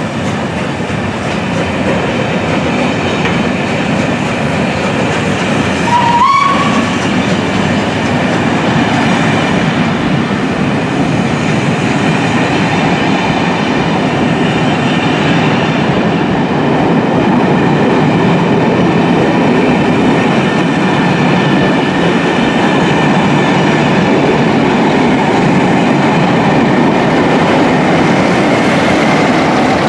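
Railway passenger coaches rolling past, their wheels clattering steadily over rail joints and pointwork, with one short high squeal about six seconds in.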